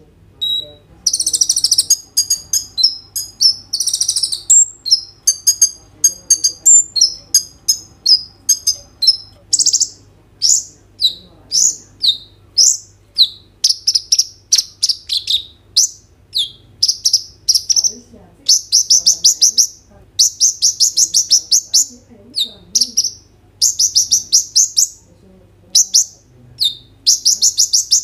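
Male kolibri ninja sunbird singing a fast, high-pitched song of short chirps and rattling trills, in quick bursts with brief pauses between them.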